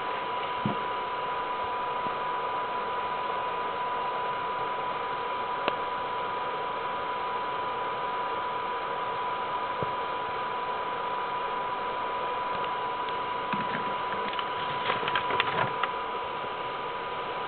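Steady recording hiss with a constant thin high whine, the self-noise of a low-quality camera microphone, broken by a few light clicks that cluster near the end as the paper sheets are moved.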